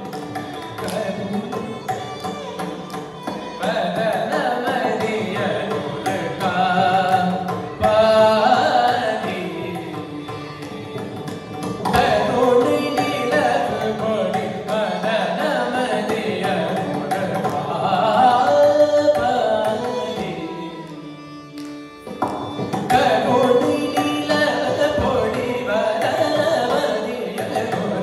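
Carnatic classical performance in Mohana raga, Adi tala: a male voice singing with violin accompaniment and mridangam strokes, with a brief lull about three-quarters of the way through.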